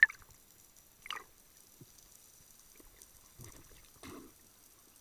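Underwater knocks picked up through a waterproof camera housing: a sharp click right at the start and a weaker one about a second in, then softer, duller sounds near the end.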